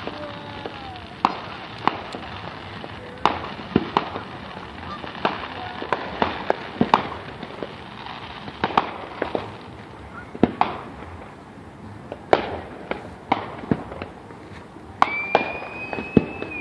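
Aerial fireworks shells bursting, an irregular series of sharp bangs, some close together and some a second or two apart, each with a short echoing tail. A high steady whistle sounds near the end.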